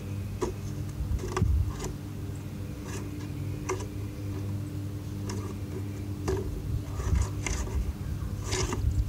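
Scattered light taps and scuffs of a cardboard box being set upright on asphalt, over a steady low hum.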